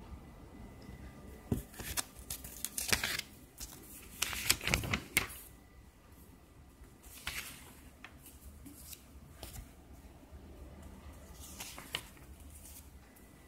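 Pages of a paper IKEA catalogue being handled and turned: crisp rustling and crinkling, in a busy cluster about two to five seconds in, then a single page turn around seven seconds and another near twelve seconds.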